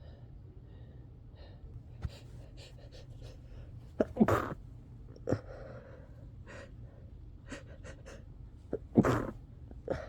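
A person sneezing in a fit: two loud sneezes, about four seconds in and about nine seconds in, each with a quick catch of breath just before it, and a few smaller sneezes and breaths between.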